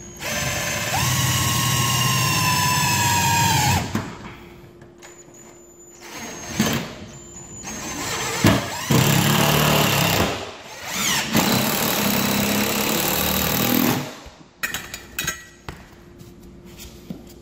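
Cordless drill driving screws to fix an electric baseboard heater's sheet-metal case to a wall stud, at a spot without one of the pre-made screw holes. The motor whines for about three seconds, then runs in several shorter bursts, with a few clatters of handling near the end.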